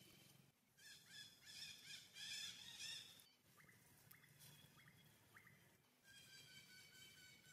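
Faint, high-pitched animal calls: a rapid wavering series about a second in, a few short rising chirps around four to five seconds, then a steadier held call near the end.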